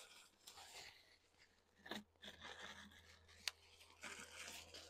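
Faint rustling and crinkling as a new insulated tumbler is handled and unwrapped from its packaging, with a soft knock about two seconds in and a sharp click about three and a half seconds in.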